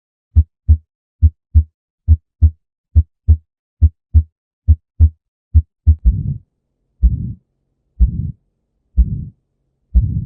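Recorded heartbeat: a normal 'lub-dub' of paired beats, then about six seconds in it changes to beats each followed by a whooshing heart murmur, about one a second.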